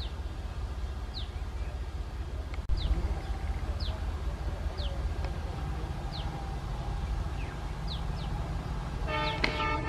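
WDM3D diesel locomotive's 16-cylinder engine running with a low, steady rumble as it pulls the train out of the station. Over it a bird gives short, falling high chirps about once a second, and a rooster starts crowing near the end.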